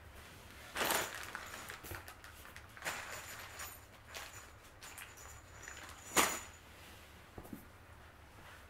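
A few short scuffs and rustles of flat-pack desk parts and hardware being handled, the loudest about a second in and about six seconds in.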